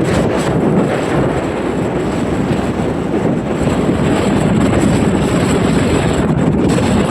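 Strong wind buffeting the microphone: a loud, steady rushing.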